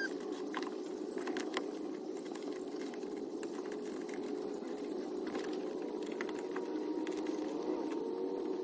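Scattered light clicks and rattles of interior trim pieces and hand tools being handled, over a steady low hum.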